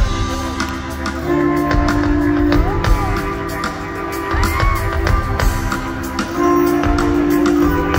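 Live rock band music over a concert sound system: drums under held chords that change twice, with a few short sliding notes.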